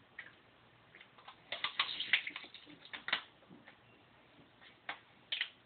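Teeth biting and gnawing at an aluminium beer can to bite it open: a run of sharp clicks and scrapes, thickest about two seconds in, with a few more near the end.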